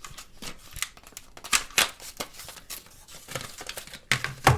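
Plastic packaging of a RAM kit being handled and opened: crinkling with sharp clicks and snaps, the loudest about a second and a half in and again near the end.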